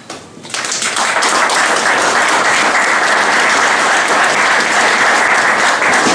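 Audience applauding, a dense steady clapping that starts abruptly about half a second in.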